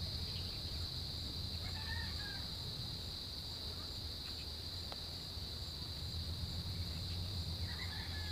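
Steady, high-pitched chirring of insects over a low steady hum, with faint short chirps about two seconds in and again near the end.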